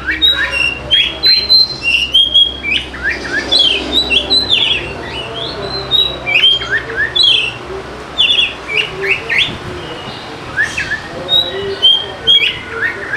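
Oriental magpie-robin (kacer) singing in a loud, rapid run of short whistled sweeps and harsh chattering notes, thinning out briefly about eight seconds in before picking up again.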